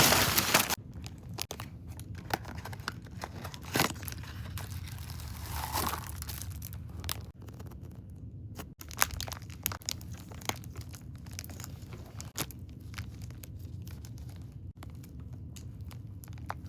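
Packaging being crinkled and torn open by hand, a run of sharp crackles and rustles that is loudest in the first second.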